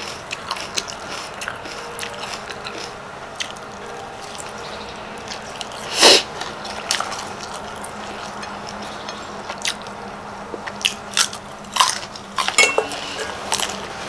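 Close-mouthed eating: chewing and biting on raw beef koi with raw vegetables, with scattered wet clicks and smacks, one loud sudden crunch about six seconds in and a flurry of bites near the end.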